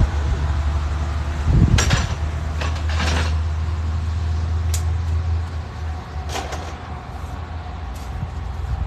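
Knocks and clatter of roadside tire-service tools and equipment being packed away, with door- or lid-like bangs about two seconds in and again later. Under it runs a steady low rumble that stops about halfway through.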